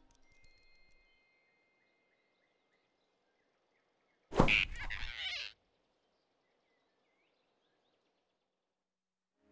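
Near silence, broken about four seconds in by a single sudden whoosh and thud lasting about a second: a cartoon sound effect of the big rabbit snatching the flying squirrel off the branch.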